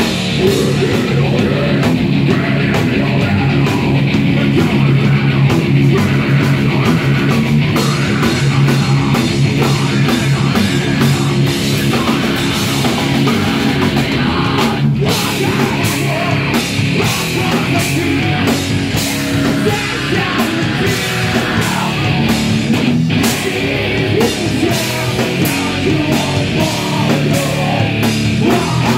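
Live hardcore punk band playing loud: distorted electric guitars, a drum kit pounding with constant cymbal hits, and a vocalist shouting into the microphone. The band stops dead for a split second twice, about halfway and near the end.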